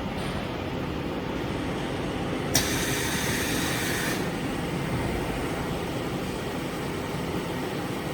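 Filter end cap welding machine running with a steady hum. About two and a half seconds in, a sharp click is followed by a hiss lasting about a second and a half, which then cuts off.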